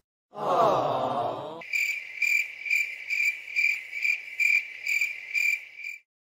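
Crickets chirping: a steady high chirp pulsing evenly about two and a half times a second, ending abruptly near the end. It is preceded by a brief loud wavering sound in the first second and a half.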